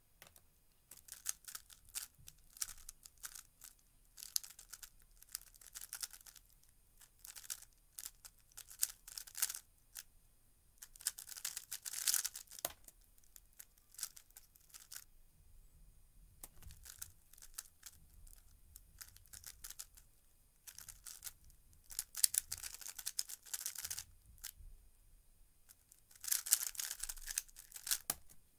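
3x3 speedcube being turned very fast by hand in timed solves: rapid runs of plastic clicks and clacks from the layer turns. There are two long runs with a short lull about halfway through.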